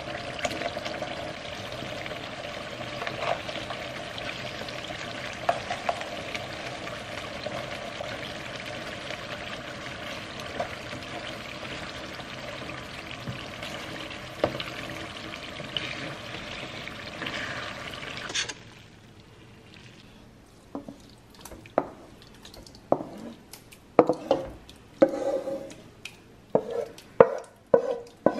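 Bolognese sauce sizzling in a frying pan on a gas burner while a wooden spoon stirs it, with small clicks of the spoon. About two-thirds through the sizzle cuts off suddenly, followed by a series of knocks and scrapes as the wooden spoon scrapes sauce from the pan into a metal pot of spaghetti.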